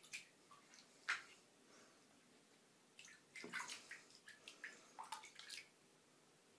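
Faint splashing and sloshing of shallow bathtub water as two young cats paddle through it: a splash about a second in, then a quick run of small splashes from about three to five and a half seconds in.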